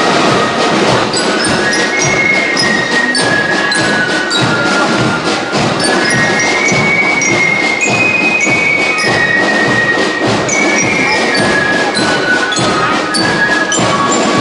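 Marching band playing a march outdoors: a high, stepping melody line over drums and sharp clicking percussion strokes.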